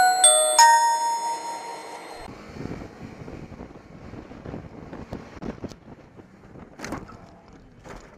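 A bright chime of three tones struck one after another, ringing and fading over about two seconds. It is followed by the steady rush of wind and road noise from a moving motorcycle, with a few scattered knocks.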